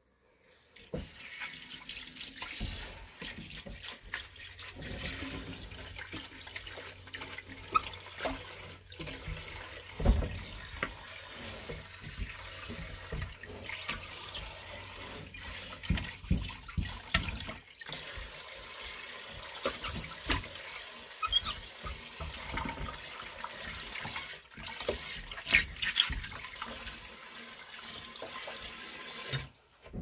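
Pull-out spray faucet running water onto a glass tank in a stainless-steel sink, water splashing as a hand scrubs inside the tank, with occasional sharp knocks. The spray starts about a second in and stops just before the end.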